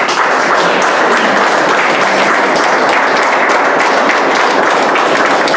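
A crowd of people applauding, loud and steady.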